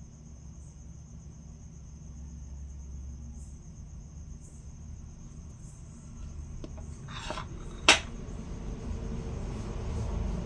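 A steady high-pitched chirring like crickets throughout. About seven seconds in comes a brief scrape, then one sharp click as the copper coin is turned over and set down on the marble tabletop.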